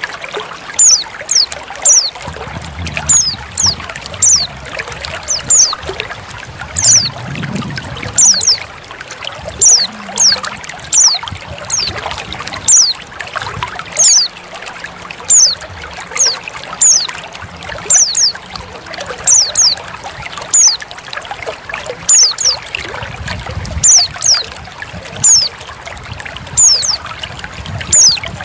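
Female white-eye (pleci) calling over trickling water: short, sharp, high notes that fall in pitch, repeated about one and a half times a second, often in pairs. This is a looped lure recording meant to draw a male white-eye into song.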